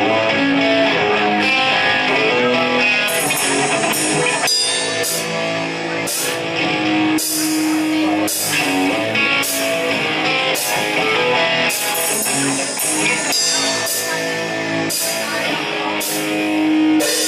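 Live rock band playing: electric guitar notes with a drum kit, cymbal hits coming in at a steady beat about three seconds in.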